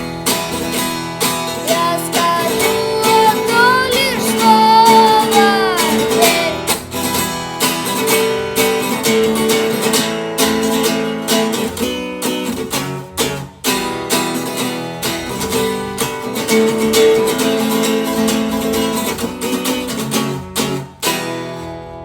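Acoustic guitar strummed in a steady rhythm, with a sung melody over it for the first few seconds. The strumming stops about a second before the end, leaving the last chord to ring out.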